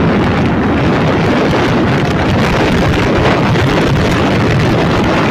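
Wind rushing over the microphone of a moving motorbike, steady and loud throughout.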